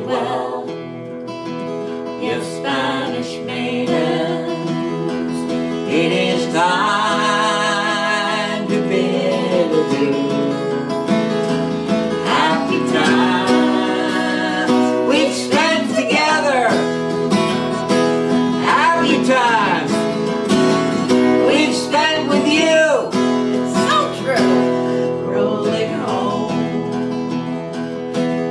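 Folk song performed live: acoustic guitar accompanying a sung melody with a wavering vibrato.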